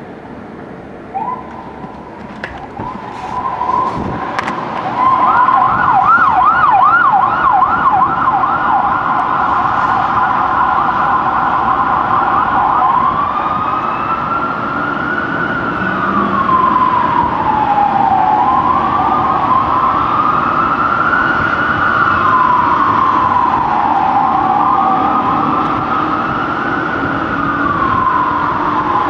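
Fire truck siren: a steady tone starts about a second in, switches to a fast yelp of about three rises a second, then a little under halfway settles into a slow wail rising and falling about every five seconds. Vehicle engine noise runs underneath.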